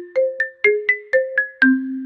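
Background music: a light, bouncy tune of quick, sharply struck notes, about four a second, each dying away, over a low note.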